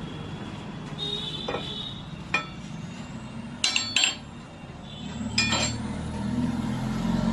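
Metal striking metal: a few separate ringing clinks, two of them close together about four seconds in, over steady workshop noise. A faint high whine rises slowly through the second half.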